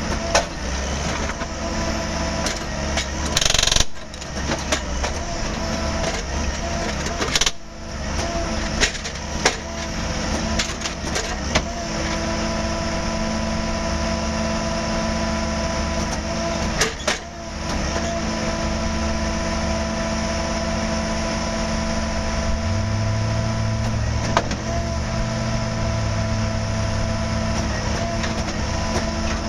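Track-repair machinery running steadily, a constant engine hum with scattered sharp metallic knocks and clanks, and a brief loud burst of noise a few seconds in. About two-thirds of the way through, a second, lower hum starts up and runs on.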